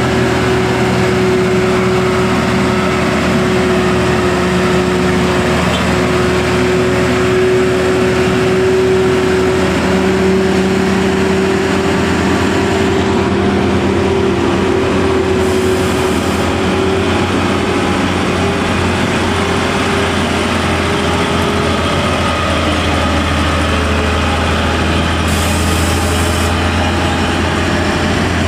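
Diesel engines of loaded cargo trucks pulling up a steep climb under load, a loud steady engine drone; a deeper note grows stronger about halfway through.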